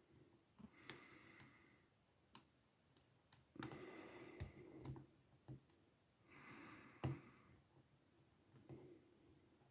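Faint, scattered clicks and ticks of a lock pick working the pin stack of a cheap padlock under a tension wrench, the picker trying to reset overset pins; a sharper click comes about seven seconds in, with a couple of short soft rustling stretches between.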